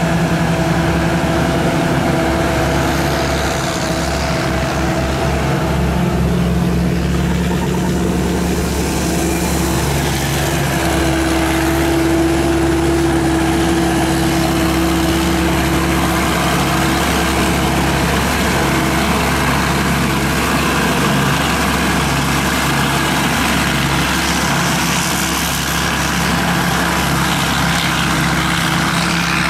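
SAK KM-D combine harvester's 260-horsepower turbocharged diesel engine running at a steady speed, an even drone with a constant hum.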